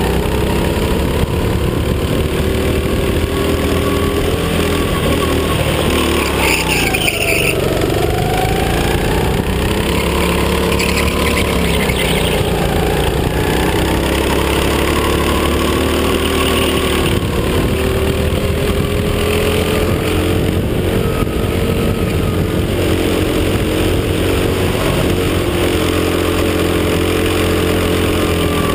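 Go-kart engine heard from on board, running at high revs, its pitch dropping sharply about seven seconds in and briefly again around ten seconds as the kart slows for corners, then climbing back as it accelerates out; the pitch falls once more near the end.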